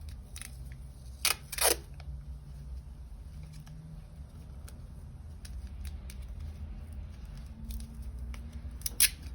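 A few short, sharp crackles and snips of masking tape and paper being worked by hand: two close together about a second and a half in, one near the end, over a steady low hum.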